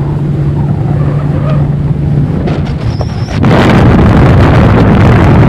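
An engine running with a steady low hum. About three and a half seconds in, loud wind rush on the microphone suddenly swamps it.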